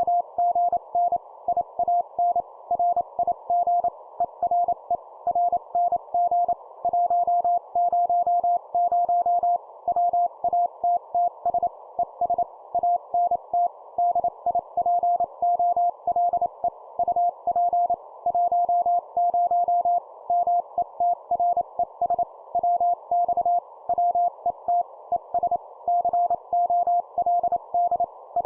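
Morse code (CW) sent at 25 words per minute: a single steady tone keyed on and off in short dots and longer dashes, with a faint hiss behind it. It spells out an amateur-radio contact (QSO) exchange of call signs and reports.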